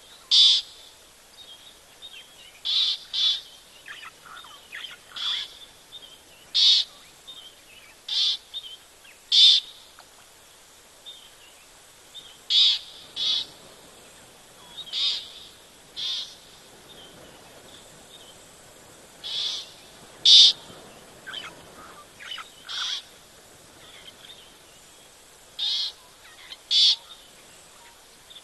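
Short, high-pitched chirp calls, one every second or two at uneven spacing, over quiet outdoor background.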